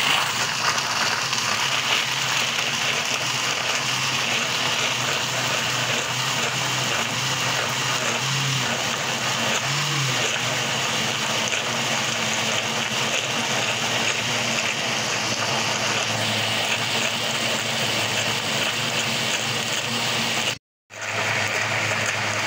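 Electric blender running steadily at full speed, churning a mango milkshake into a whirling vortex, with a steady motor hum under the churning. The sound cuts out for a moment near the end.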